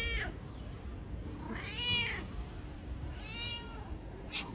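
Calico cat meowing three times, each meow about half a second long and rising then falling in pitch, spaced a second and a half to two seconds apart.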